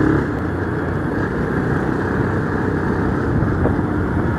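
Motorcycle on the move at a steady cruising speed, its engine and the rush of wind and road noise making an even, unbroken sound.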